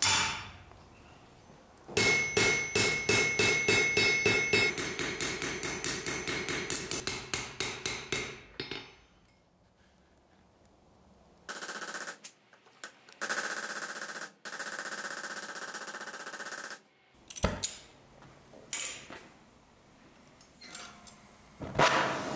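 Blacksmith's hammer striking hot steel on an anvil: a fast run of ringing blows, about three a second, for several seconds. Then comes a few seconds of steady noise and a few single blows.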